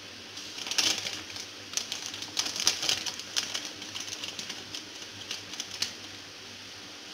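A quick, irregular run of light clicks and taps, starting about half a second in, loudest near the start and again around three seconds, and dying away about six seconds in.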